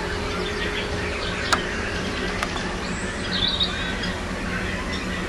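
Wild birds chirping and calling over a steady outdoor background hum, with a quick run of high notes a little after three seconds in. Two sharp clicks sound in the first half, about a second apart.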